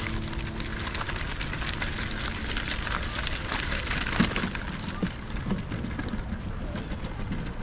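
Footsteps crunching on a gravel path, with a few duller footfalls on the planks of a wooden footbridge starting about four seconds in.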